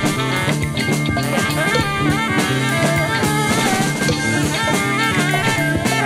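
Psychedelic rock band recording from 1972: drum kit and guitar playing a dense, steady passage with a busy drumbeat.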